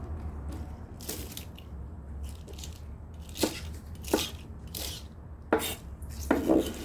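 Shih Tzu chewing raw napa cabbage: several crisp crunches, the loudest cluster near the end, over a low steady hum.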